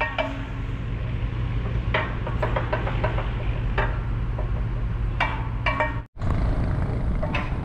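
Steady low hum of an idling engine at a crane assembly, with a few sharp metallic clinks from the steel lattice boom sections being worked on. The sound cuts out briefly about six seconds in.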